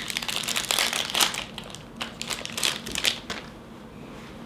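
Small clear plastic parts bag crinkling and rustling as it is handled and opened, an irregular crackle that dies down about three and a half seconds in.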